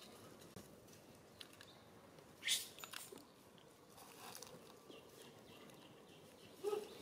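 Dry leaf litter rustling and crackling under small macaques moving about, loudest in one short crackle about two and a half seconds in, with a brief pitched call near the end.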